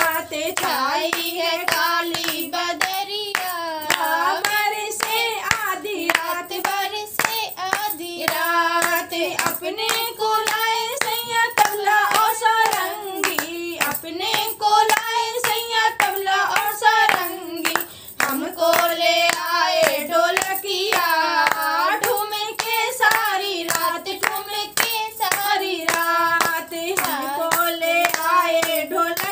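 A woman singing a Hindi folk rain song unaccompanied, keeping time with regular hand claps.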